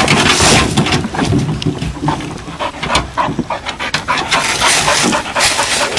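Bluetick coonhound panting hard, close by.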